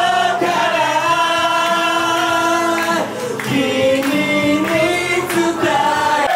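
A man singing loudly into a handheld microphone over musical accompaniment, holding a long note from about half a second to three seconds in.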